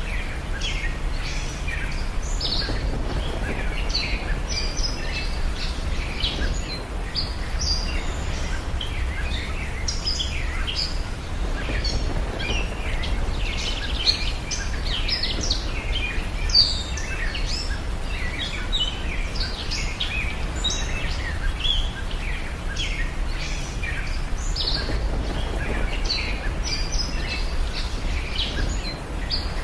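Many small birds chirping and calling continuously over a steady low rumble.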